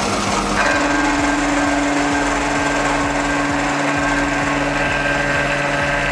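Milling machine running with its face-milling cutter cutting across a metal truck body: a steady machine hum with held whining tones. About half a second in, the tone shifts up and a higher whine joins.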